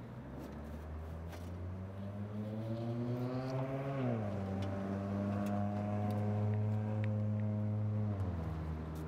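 A low engine drone from a vehicle that rises slowly in pitch, then steps down about four seconds in, holds steady, and steps down again near the end.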